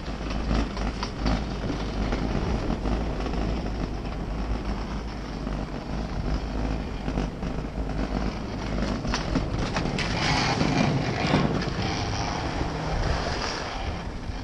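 Skis sliding and scraping over packed snow, with wind buffeting the camera's microphone as a low rumble. The hiss of the skis grows louder about ten seconds in, as the skier picks up speed.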